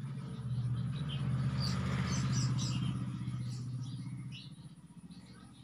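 A low engine hum that swells to a peak about two seconds in and fades away by four and a half seconds, like a motor vehicle passing, with scattered bird chirps.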